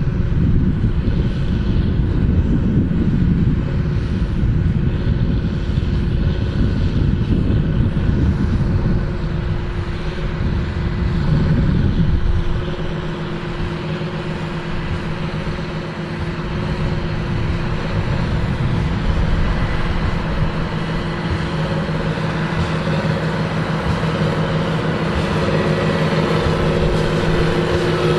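John Deere 8530 tractor's six-cylinder diesel working under load while pulling a Krone BigPack large square baler. For the first twelve seconds or so it is loud, with heavy low noise. After that it drops a little to a steadier engine note.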